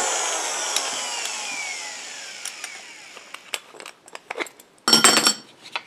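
Power drill motor winding down after the trigger is released, its whine falling in pitch and fading over about two and a half seconds. Then scattered clicks and knocks of the clamped wooden boards being handled, with a brief loud clattering scrape about five seconds in.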